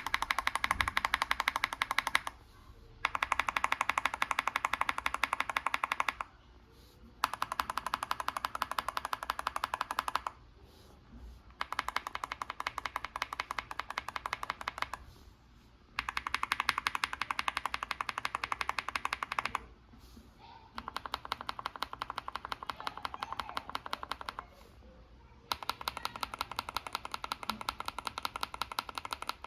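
Rapid typing on tactile mechanical keyboard switches in a MonsGeek M5 keyboard, one switch type after another. Seven runs of fast clicking, each lasting three to four seconds, separated by pauses of about a second.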